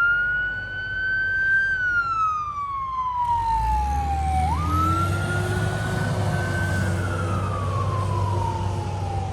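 Fire truck siren wailing: each cycle jumps up quickly in pitch, then slides slowly down over about four seconds, and a new cycle starts about halfway through. A steady low engine rumble joins under it about three seconds in as the truck pulls away.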